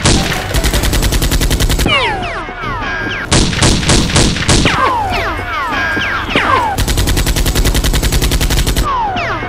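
Automatic gunfire sound effects dubbed over a Nerf gun battle: three rapid bursts of machine-gun fire. Between the bursts come short, high whistling whines that fall in pitch.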